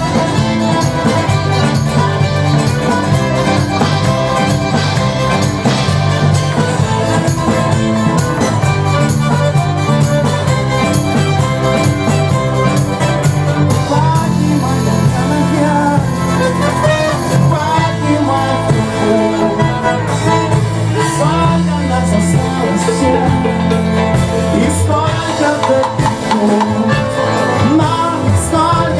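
Band music with singing, playing continuously at a steady level.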